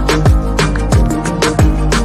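Background music with a steady beat: a deep, falling kick drum about twice a second under held synth notes and crisp high percussion.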